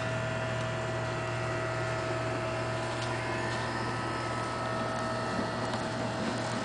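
A steady low hum with a thin, steady higher tone above it, holding at an even level.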